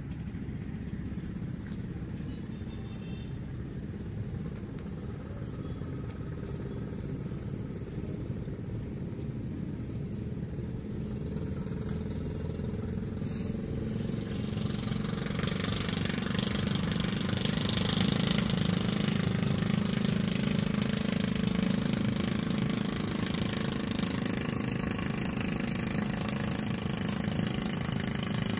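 A motor engine running steadily, growing louder about halfway through and staying loud.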